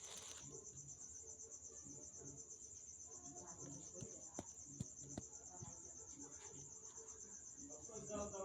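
Faint, steady, high-pitched insect trill, finely pulsing, with a few soft clicks about halfway through.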